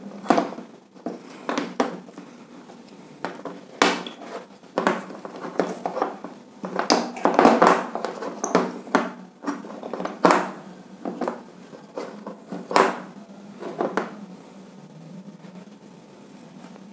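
Plastic switch and fan-regulator boxes being pushed and set straight on a hard tabletop: irregular clicks, knocks and scrapes, stopping a few seconds before the end.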